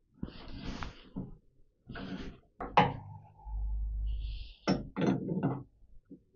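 A large steel spanner clanking and knocking against a lathe chuck as it is levered to tighten the collet chuck's threaded ring. There is a sharp metallic knock about three seconds in, a low rumble for about a second, then another knock with more clatter.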